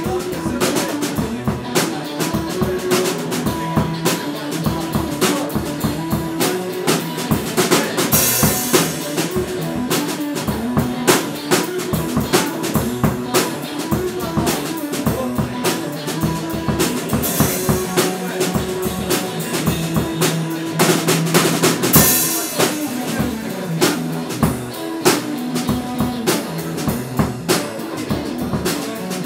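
A drum kit and an electric guitar playing an instrumental rock jam, with steady kick, snare and rimshot strokes under held guitar notes. Cymbal crashes ring out three times, about 8, 17 and 22 seconds in.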